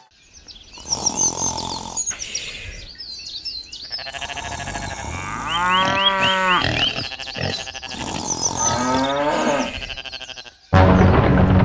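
Farm animals calling: one long pitched call in the middle, with many high chirps around it. Loud music cuts in abruptly near the end.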